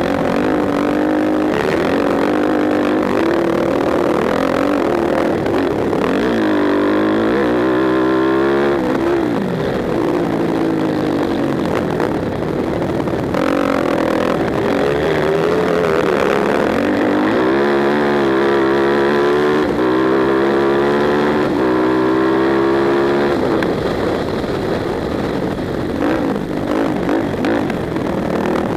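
Racing quad's engine heard onboard at full race pace, its pitch climbing as it accelerates and dropping back off the throttle into the corners, twice in long clear sweeps.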